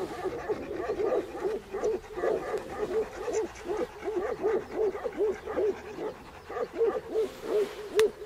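Tibetan Mastiff whimpering in short, rhythmic rising-and-falling cries, about three a second. A couple of sharp clicks come near the end.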